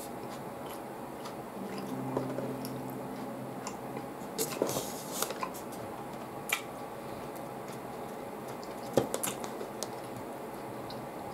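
A person eating chilled ramen noodles: quiet, squishy chewing with scattered small clicks, a few louder ones about four to six seconds in and again near nine seconds.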